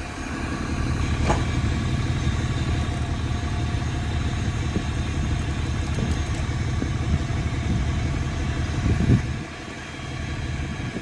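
Truck engine running steadily with a low rumble, with a short sharp clank about a second in. The engine sound drops to a lower level about nine seconds in.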